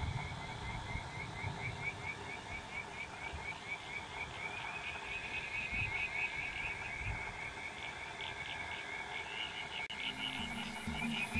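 An animal calling with a steady run of short, high chirps, about four a second, over a low rumble. Near the end it cuts suddenly to electronic music with a deep bass tone.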